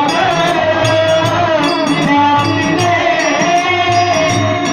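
Devotional song: a singer holds and bends a melody line over instrumental accompaniment, with a steady beat of jingling hand percussion.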